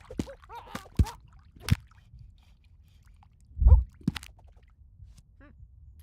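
Foley sound effects for an animated scene: a few sharp knocks in the first two seconds, a heavy low thump a little under four seconds in followed by a click, and faint short squeaks near the end.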